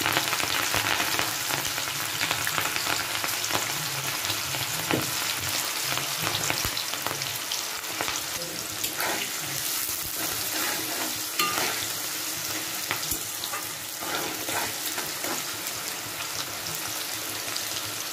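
Cut green beans sizzling in hot ghee in a kadai, with scattered pops and the scrape and tap of a spatula stirring them now and then.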